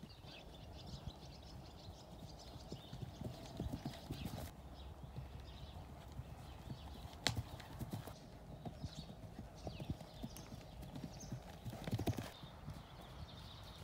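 Hoofbeats of a ridden horse cantering on soft ground, first sand and then grass: a continuous run of dull, irregular thuds, with one sharper knock about seven seconds in.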